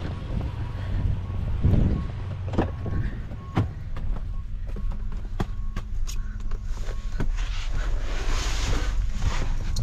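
A vehicle engine running with a steady low hum, with many sharp clicks and knocks scattered over it.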